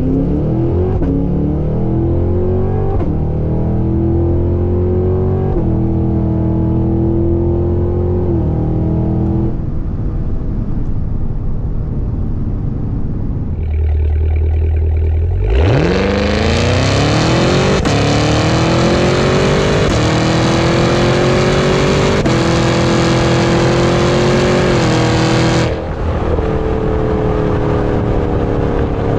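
The Cadillac Escalade V's supercharged 6.2-liter V8 under hard acceleration twice. Each time the engine note climbs and drops back in steps as the automatic transmission upshifts, with a lower lull between the two pulls and a steady cruising note near the end.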